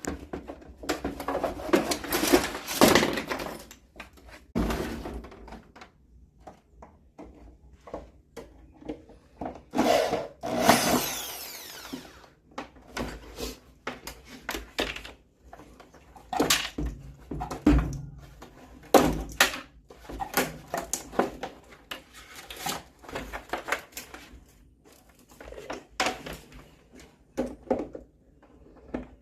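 Irregular knocks, clicks and rattles of tools against metal and plastic parts while an LST12 washing machine is being taken apart. A longer stretch of scraping or whirring comes about ten seconds in.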